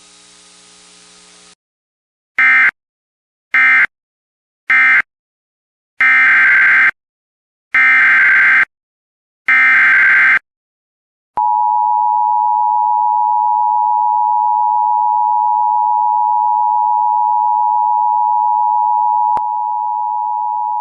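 Emergency Alert System data and alert tones. After a faint hum, three short bursts of digital end-of-message code sound, then three longer bursts of SAME header code. From about halfway in comes the EAS two-tone attention signal, a steady dual tone that holds to the end.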